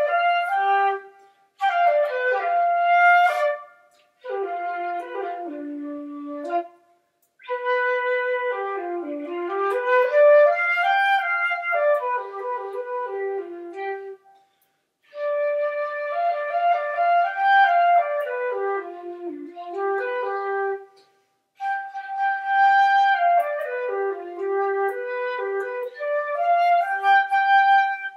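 Background music: a flute melody played in phrases of a few seconds, each broken off by a brief pause.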